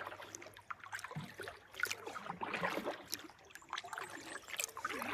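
Canoe paddle strokes in calm lake water, with water trickling and dripping off the blade and small splashes coming irregularly, about one every second or so.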